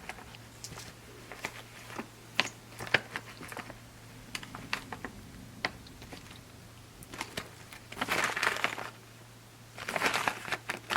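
Plastic snack pouch of freeze-dried fruit crinkling as it is handled, with many small sharp clicks and crackles. Two longer bursts of rustling come near the end.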